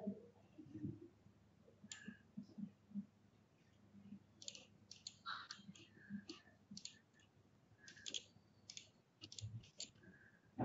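Faint computer mouse clicks: a couple about two seconds in, then a quick run of clicks through the second half.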